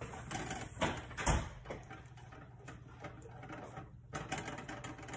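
Food cooking in a frying pan, a steady crackle of small sizzling pops, with two sharp knocks about a second in.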